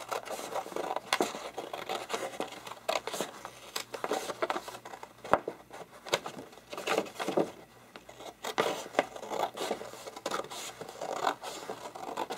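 Scissors cutting through posterboard in a run of crisp snips, roughly one or two a second, as the blades work along a straight line across the sheet.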